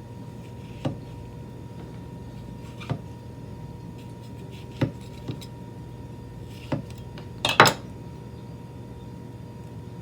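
A kitchen knife knocking on a cutting board while vegetables are cut for garnish: a handful of separate knocks a second or two apart, the loudest a quick double knock about three-quarters of the way in, over a steady electrical hum.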